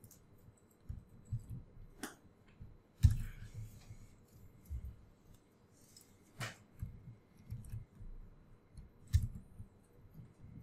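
Computer mouse and keyboard clicks: a few sharp clicks a couple of seconds apart, with soft low thumps between them. The loudest click comes about three seconds in.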